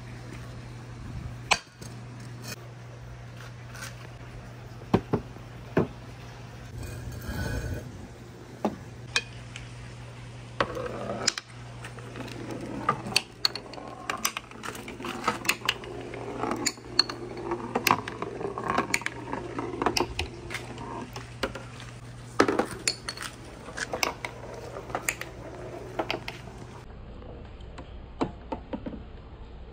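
Marbles clicking and clattering as they roll and drop through a handmade wooden marble run: many sharp separate clicks, scattered at first and coming thick and fast through the middle and later part.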